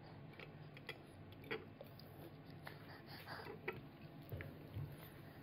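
Faint, scattered small clicks and mouth noises from a toddler eating: chewing and a fork touching the plate, over a low steady room hum.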